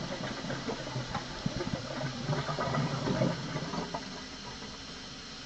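Water running from a kitchen tap while a bottle is washed in the sink, with small knocks and clatter; it settles to a steadier, quieter hiss about four seconds in.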